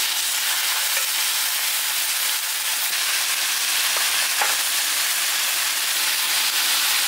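Marinated pork and beef slices sizzling steadily on a hot round Korean barbecue grill pan, with a few small pops about four seconds in.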